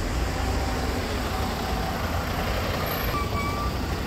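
Road traffic noise with a heavy vehicle such as a city bus running close by, a steady low rumble. A short thin high squeal comes about three seconds in.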